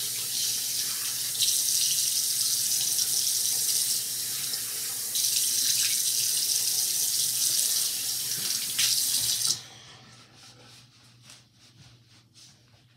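Bathroom sink tap running, the splashing stream changing in level as hands rinse a face under it. The water is turned off sharply about nine and a half seconds in, leaving only a few faint soft sounds.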